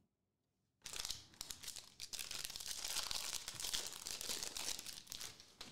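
A foil Prizm soccer trading-card pack crinkling and tearing as it is ripped open by hand, a dense crackle that starts about a second in.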